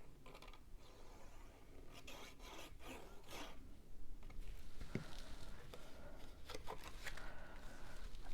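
Cardstock rustling and rubbing as a paper box card is handled, folded and its glued tab pressed shut: a string of short scraping strokes, busier and louder in the second half.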